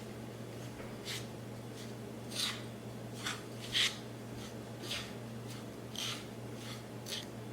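About seven short, separate scraping or rustling strokes of hands-on food preparation, over a steady low hum.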